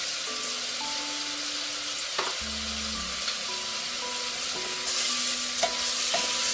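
Pork sizzling as it fries in hot oil in a pot, a steady hiss that grows louder about five seconds in.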